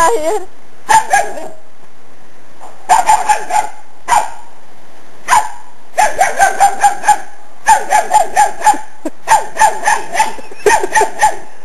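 Dogs barking: short, sharp, fairly high barks, a few single ones at first, then quick runs of several barks a second from about six seconds in, with brief gaps between the runs.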